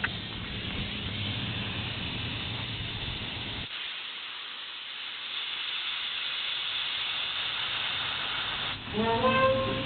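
Steady hiss of compressed air at a pickup's air-cylinder dump bed, over a low rumble that cuts off about a third of the way in. Near the end comes a brief, louder tone rising in pitch.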